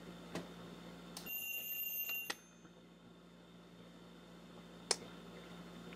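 Seiko QHK025S quartz alarm clock's bell alarm ringing, a steady bell ring lasting about a second that stops abruptly with a click. A couple of faint clicks come before and after it.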